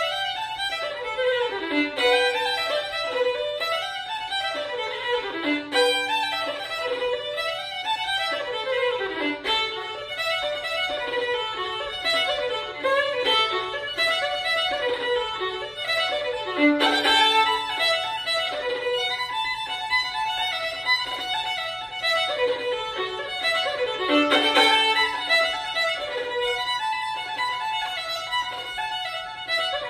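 Solo fiddle playing an Irish reel: an unbroken run of quick bowed notes.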